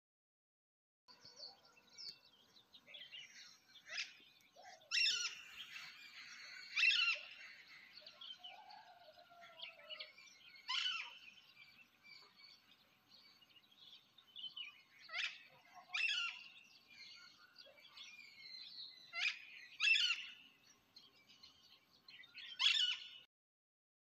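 A dawn chorus of several wild birds calling in forest. The loudest calls sweep sharply down in pitch and come every one to four seconds, over softer chirps, with a lower warbling call near the middle.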